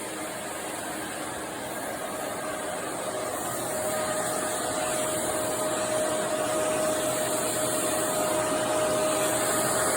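Vacuum cleaner running with a steady whine, growing gradually louder.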